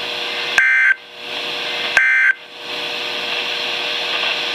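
NOAA Weather Radio SAME end-of-message data bursts: two short, harsh warbling digital bursts about a second and a half apart, the last two of the three that close an EAS alert, over steady radio hiss.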